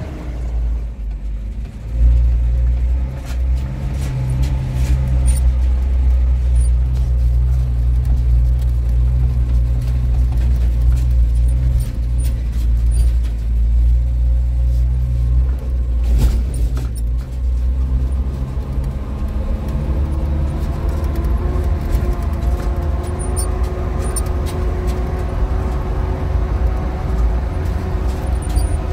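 A motor vehicle running, with a steady low rumble throughout and an engine hum that comes through more clearly in the second half.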